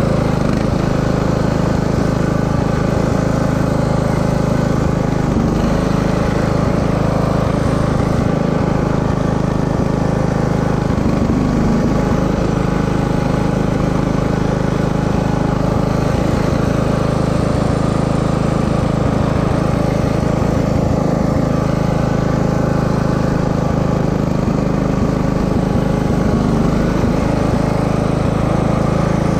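Riding lawn mower's engine running steadily as the mower is driven, while the engine pours out white smoke, a sign that it is failing.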